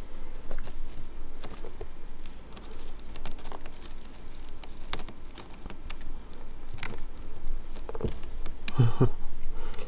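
A kitten gnawing and clawing at the rim of a woven straw cat bed, a run of irregular small crackles and clicks of teeth and claws on the straw.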